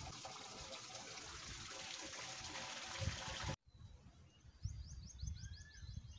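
Steady rush of running water that cuts off suddenly about three and a half seconds in. After the cut a bird gives a quick series of short, high, repeated chirps, with low wind rumble on the microphone.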